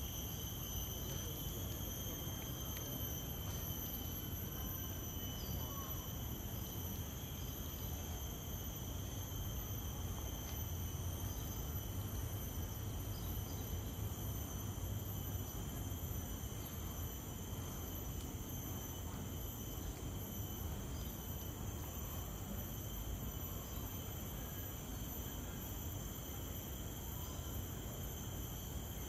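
Steady chorus of insects in tropical garden vegetation: several high, continuous shrill tones held without a break, over a low background rumble.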